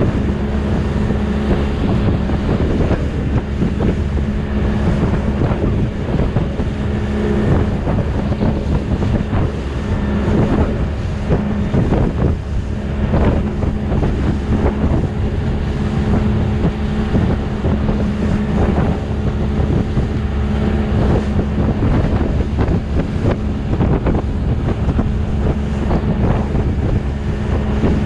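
Outboard motor running steadily at cruising speed while the boat moves through light chop, with wind noise on the microphone, rushing water and irregular slaps of waves against the hull.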